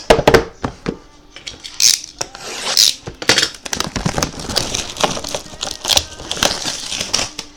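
Trading cards and their packaging being handled at a table: irregular small clicks, snaps and brief rustling or tearing sounds.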